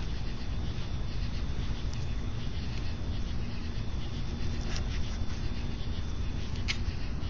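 Steady low rumble with a faint constant hum, and a few brief, faint clicks about two, five and six and a half seconds in.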